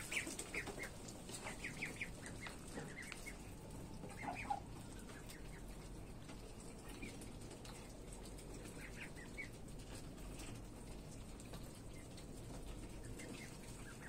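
Ducklings peeping in quiet clusters of short high chirps while ducks feed at a trough, with one louder, lower call about four and a half seconds in.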